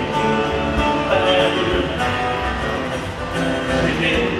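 Live country music: an acoustic guitar strumming chords over the stage PA.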